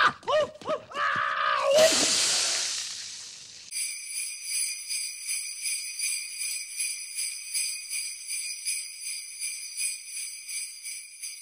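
A man screaming in short, rising-and-falling yells, then a loud hiss as his burning head is doused in the snow. From about four seconds in, sleigh bells jingle in a steady rhythm, about two shakes a second.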